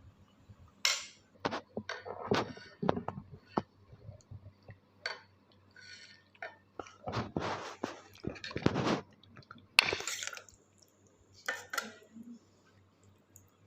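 Utensils clinking, knocking and scraping against bowls and plates in an irregular string of short sounds while a dish is served up, loudest about ten seconds in.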